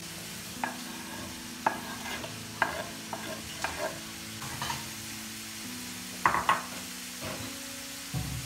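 Cooking in a pan: a utensil stirring and knocking against it about ten times, over a light sizzle. Soft background music runs underneath.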